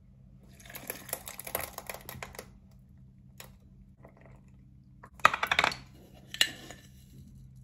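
Light clattering and clicking of small hard objects being handled, in two clusters, with the louder burst of clicks about five seconds in.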